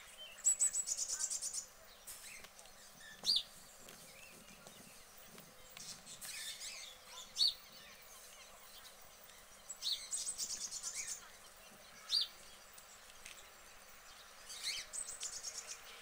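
A bird singing: a rapid, high trill of about a second, given three times, with single short chirps in between.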